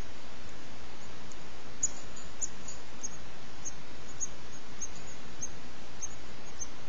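European goldfinch nestlings, six days old, giving short, thin, very high begging peeps about twice a second from about two seconds in, over a steady hiss.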